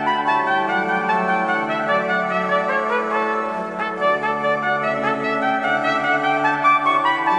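Instrumental music: a trumpet-like melody over held, sustained chords, at a steady level.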